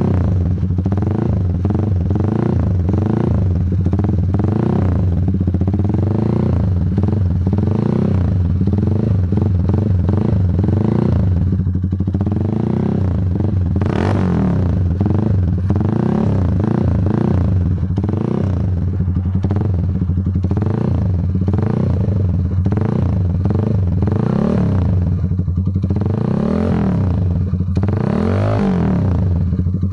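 Z200S motorcycle engine running through an aftermarket SC exhaust pipe with a big elbow, idling steadily with repeated throttle blips that rise and fall in pitch.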